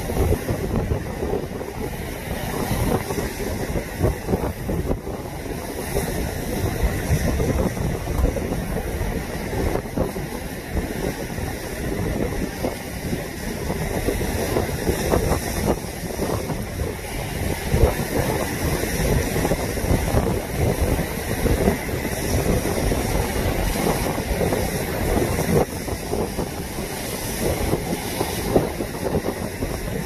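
Wind buffeting the microphone over the constant rush of large lake waves breaking against a concrete seawall.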